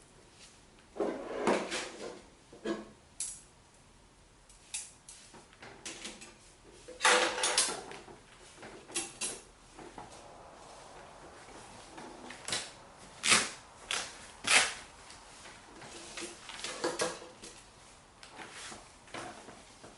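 Objects being handled by hand: irregular knocks, clinks and short scrapes, with a longer scraping rattle about seven seconds in and two sharp knocks near the middle.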